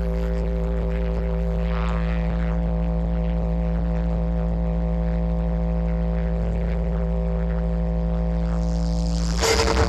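A sustained deep bass drone with a steady hum of several held tones, played loud through a DJ sound system as a sound-check test. About half a second before the end, a loud hit with a bright hiss cuts in.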